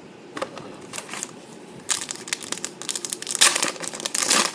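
Foil booster-pack wrapper crinkling as it is torn open by hand. A few light clicks come first, then a run of crinkles from about two seconds in, loudest near the end.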